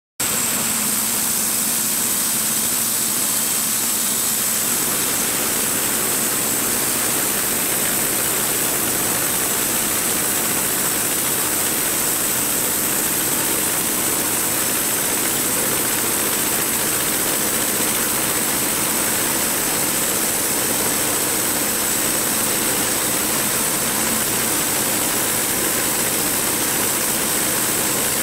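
Portable bandsaw mill's gasoline engine running steadily at speed as the band blade cuts through a white ash log, an even, unbroken noise that cuts in abruptly.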